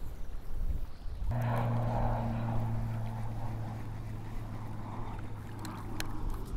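Baitcasting reel cranked at a steady pace to retrieve a lure after the cast. A low, even gear whir comes in about a second in and holds until the end, with faint clicks near the end.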